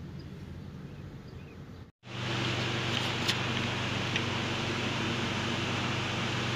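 Steady background hum and hiss of room noise, cut off briefly about two seconds in and then coming back louder, with a few faint clicks.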